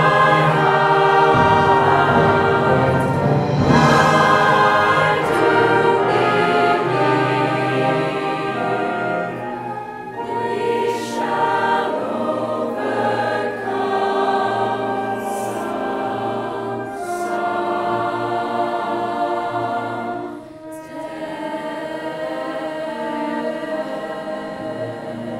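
Background choral music: a choir singing slow, sustained chords.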